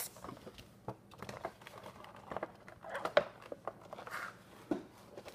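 Funko Pop cardboard box and its plastic insert being handled as the figure is worked out: irregular rustling, crinkling and small knocks, with one sharper knock about three seconds in.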